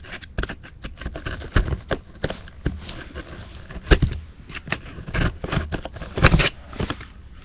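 A box cutter working at a cardboard shipping box: irregular scrapes, crackles and clicks of the blade and the cardboard being handled, with two sharper knocks about four and six seconds in.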